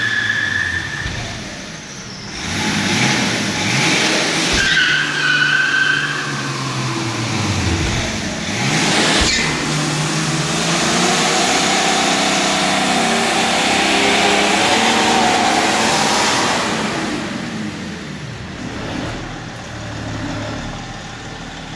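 Burnout in a BMW E46 330d: the straight-six turbodiesel revs up and down while the rear tyres spin and squeal on the brick floor, smoking. The revs ease off near the end.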